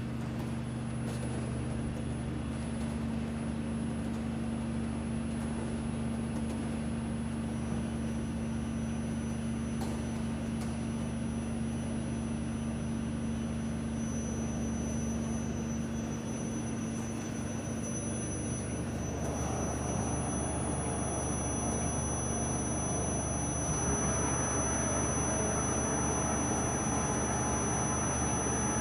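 Large Gurutzpe oil-country CNC lathe running: a steady machine hum with low steady tones, joined by a faint high whine after a few seconds, and growing louder and noisier in the last third.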